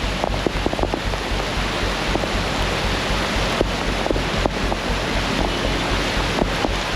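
Heavy rain pouring down and floodwater rushing, a dense steady hiss with scattered sharp taps, and wind buffeting the microphone with a low pulsing rumble.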